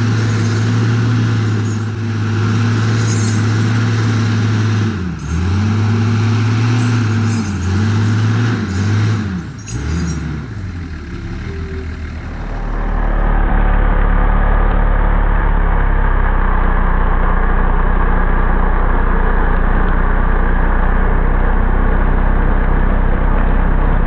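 Heavy logging machine engine running hard, its pitch dipping and recovering several times as it is loaded. It then gives way abruptly to a different steady, deep machine rumble.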